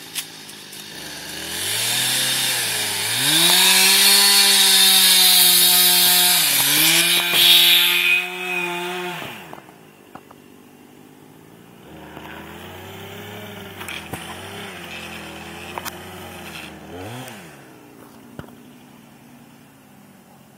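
Husqvarna 455 Rancher two-stroke chainsaw revving up and cutting through wood at full throttle for several seconds, with a brief dip mid-cut, then dropping back. It is run again more lightly for a few seconds before cutting out.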